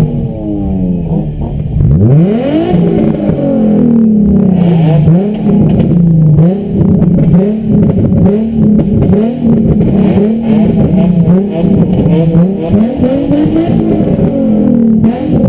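Car engines revving again and again, the pitch climbing and dropping in quick blips, with several engines overlapping.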